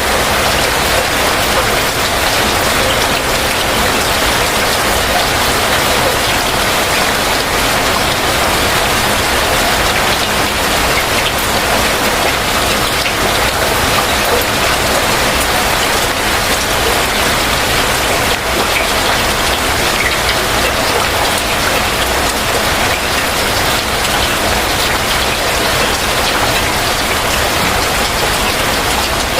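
Heavy rain falling steadily, an even hiss of many drops with no let-up.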